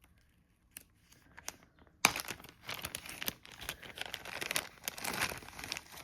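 Packaging being unwrapped by hand: a few small clicks, then about two seconds in a sudden burst of dense crinkling and rustling that goes on.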